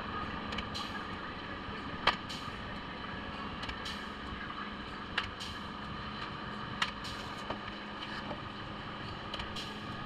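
Steady mechanical hum with a few sharp clicks or taps, the loudest about two seconds in and others around five and seven seconds.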